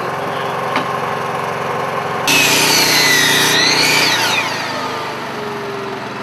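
A power tool running, with a whining motor pitch that dips and rises in the middle and then fades.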